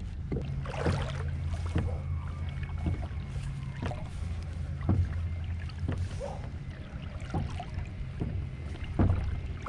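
Hobie Outback kayak moving on the water: a steady low rumble with short knocks roughly once a second.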